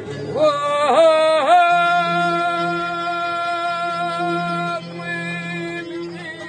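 A singer in a Moroccan Ghiwani-style song. The voice enters with quick ornamental bends, then holds one long steady note for about three seconds over a low steady accompaniment, and fades near the end.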